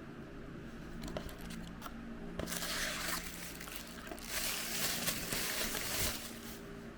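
Plastic toy wrapper crinkling as it is handled and opened: a few light clicks, then two stretches of crinkling, about two and a half seconds in and again from about four seconds in.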